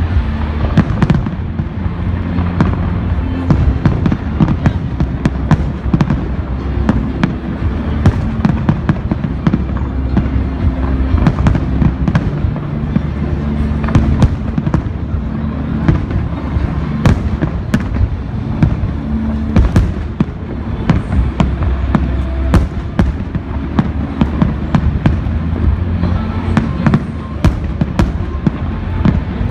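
Fireworks display: a continuous barrage of bangs and crackling pops, many close together, over steady low held tones.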